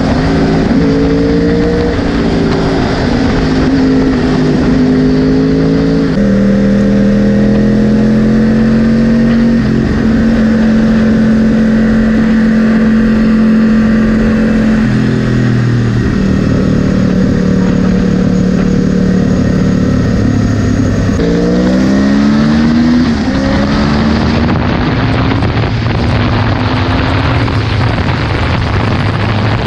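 2010 Yamaha R1's crossplane inline-four engine at full throttle on track, heard from onboard: the pitch climbs through the gears and drops at each upshift, is held high for several seconds along the straight, then drops and rises again in quick steps about two-thirds of the way through.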